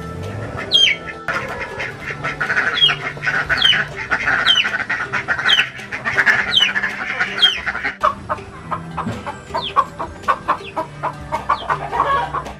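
Poultry calling in a pen: a bird repeats short, high falling peeps about once a second, with clucking among the flock.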